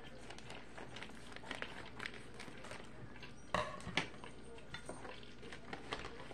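Plastic bag of brown sugar crinkling and rustling as it is handled, with small scattered clicks and two sharper knocks about three and a half and four seconds in.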